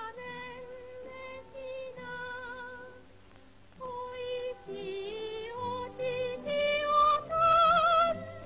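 Film soundtrack music: a melody that pauses briefly about three seconds in, then builds to a loud, wavering held note near the end.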